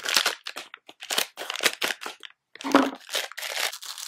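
Plastic foil wrapper crinkling and crackling in irregular bursts as it is cut open with scissors and pulled apart by hand, with one louder crackle a little under three seconds in.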